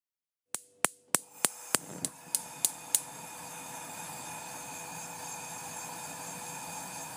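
Logo sound effect: nine sharp clicks, about three a second, over a steady hissing wash with a held ringing tone that comes in about a second in and holds.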